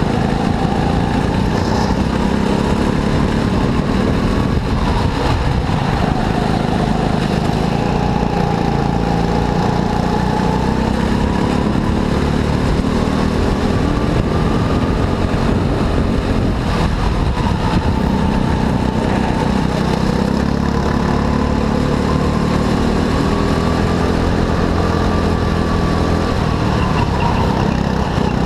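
Go-kart engine running under load, its pitch rising and falling slowly as the kart speeds up and slows through the track's corners, over a steady low rumble.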